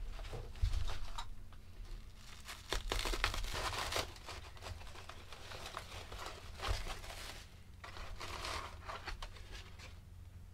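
Packaging crinkling and rustling in irregular bursts with short pauses as a shipped egg carton is unwrapped and its clear plastic tray opened.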